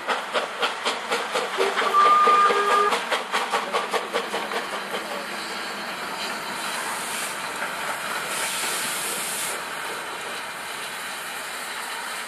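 Steam locomotive working, its exhaust chuffing about three times a second and quickening until the beats merge into a steady hiss. A short whistle blast of about a second sounds near two seconds in, the loudest moment. Later come two bursts of louder, sharper hissing steam.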